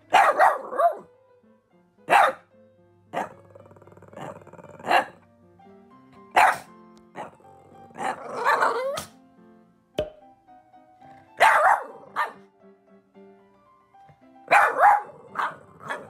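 A Boston Terrier barking repeatedly, in single sharp barks and short clusters, with background music playing underneath.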